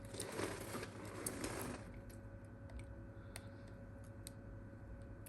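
Small repair tools scraping and clicking against a smartphone's frame and internal parts: a scratchy scrape for under two seconds at the start, then scattered light clicks, over a faint steady hum.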